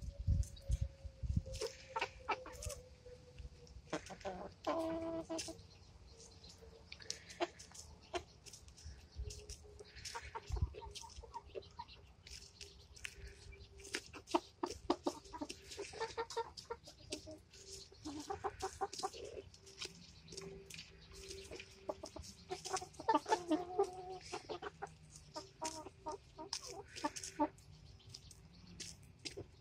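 Hens clucking while they peck at a head of cabbage held out to them, with many quick sharp pecks on the leaves.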